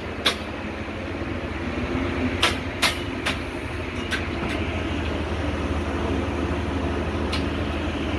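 Steady low engine rumble of construction-site machinery, with about seven sharp knocks scattered through it, most of them in the first half.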